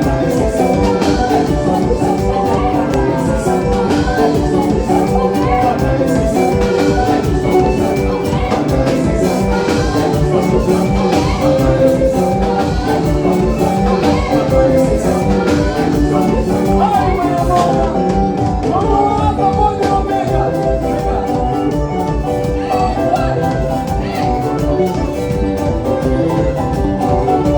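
Upbeat band music with a steady dance beat.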